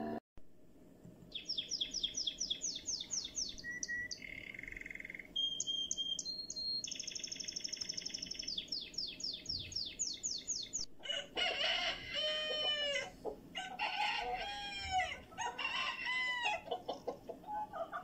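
Birdsong: rapid high trills and short steady whistles from a songbird for about nine seconds, then a different bird giving a run of lower, repeated arching calls.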